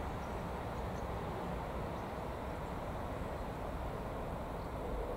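Steady low rumble and hiss of outdoor station ambience, with a few faint bird chirps. A short bird call starts near the end.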